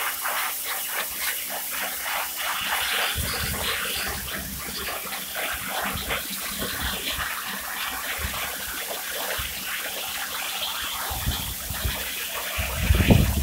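Pressure washer jet hissing and spattering against woven olive-press mats (capachos), stripping the dirt out of them. A loud low rumble comes in near the end.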